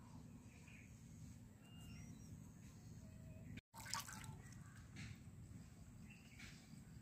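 Near silence: a faint low background hum with a few faint short calls, a brief dropout in the sound a little over three and a half seconds in, and a short click just after it.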